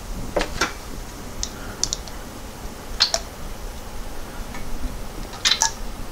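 A handful of light, irregular clicks and taps, the sort made when small metal transmission parts and hand tools are picked up and set down. The sharpest come about three seconds in and again near the end.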